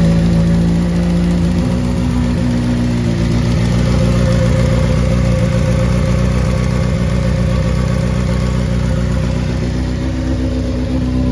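2022 Honda CBR600RR's inline-four engine, fitted with new exhaust headers, idling steadily just after starting up. Its tone shifts a little about two seconds in, then holds steady.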